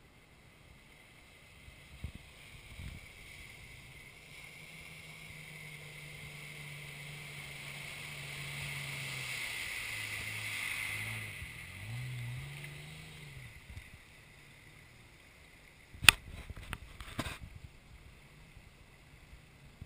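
A motor vehicle's engine draws near through water with a hiss of water. It is loudest about 10 seconds in, its pitch dips and rises again as it passes, then it fades. A single loud sharp knock comes about 16 seconds in, followed by a few weaker ones.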